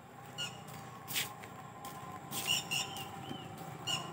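Birds giving short chirps, one about every second, some sliding in pitch, over a steady low hum, with a couple of brief scuffing noises.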